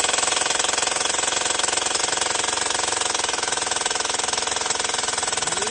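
Pneumatic hammer drill running steadily in a coal mine, a fast, even rattle.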